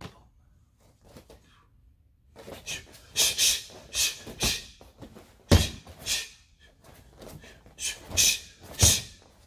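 A martial artist performing a form: a run of short, sharp, forceful exhalations with the strikes and blocks, along with uniform snaps and a couple of heavy thuds of bare feet landing on the mat, about halfway and near the end.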